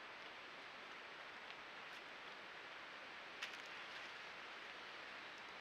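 Steady faint hiss with a few soft clicks and rustles, the loudest about three and a half seconds in: a white-tailed deer's hooves stepping on dry leaf litter close by.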